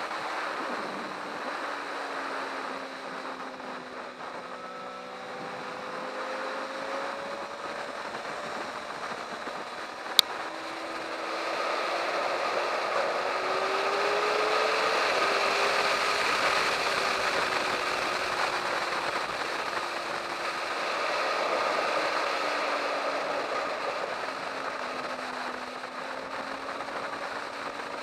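Onboard sound of a sport motorcycle at speed on a race track: a heavy rush of wind over the camera with the engine note rising and falling as the rider works through the corners. A single sharp click about ten seconds in.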